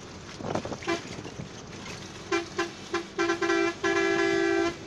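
Vehicle horn honking: a string of short toots, then one longer blast lasting about a second, over the steady noise of a vehicle on the move.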